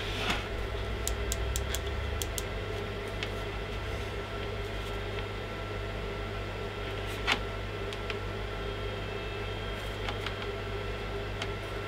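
Small plastic clicks and taps from handling and adjusting a Braun BT5265 beard trimmer and its slide-on comb attachment, the sharpest about seven seconds in, over a steady electric hum.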